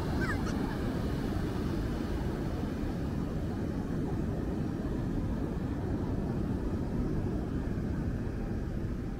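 Steady low rumble of ocean surf breaking along the beach, with wind on the microphone.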